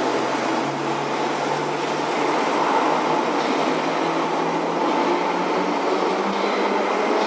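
London Underground 1972 Stock tube train pulling out of the platform and running away into the tunnel. The wheels and motors give a steady rumble, with a low hum that rises slightly in pitch over the first couple of seconds as the train picks up speed.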